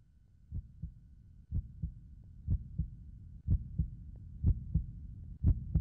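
Heartbeat, a double thump about once a second, growing steadily louder, with a faint steady high tone behind it.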